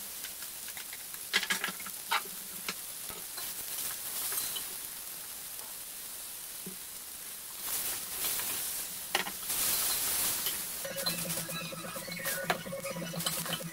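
Sliced red onions sizzling in hot oil in a stainless steel pot, the sizzle starting suddenly as they go in. A wooden spatula stirs them, knocking against the pot now and then.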